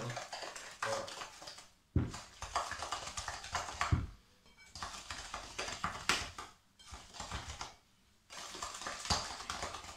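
Butter and sugar being stirred by hand in a mixing bowl: a utensil scraping round the bowl in uneven strokes, with a few sharp knocks against it about two, four and nine seconds in.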